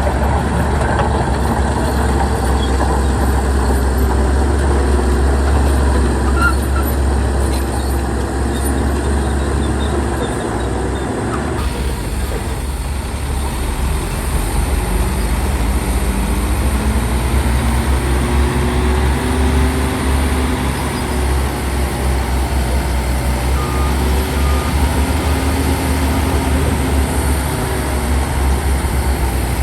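Heavy diesel engine of earth-moving machinery running with a steady deep rumble. The sound changes abruptly about a third of the way in, and afterwards the engine pitch rises and falls as the machine works.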